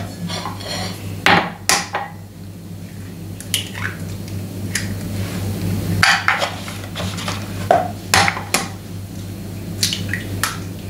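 Kitchen work as eggs are added to a cake batter: a scattered series of sharp taps and clinks of crockery and utensils. A steady low hum runs underneath.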